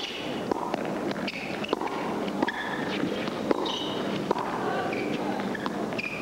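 Tennis doubles rally: a string of sharp racket strikes and ball bounces at uneven intervals, with the players' quick footsteps on the indoor court.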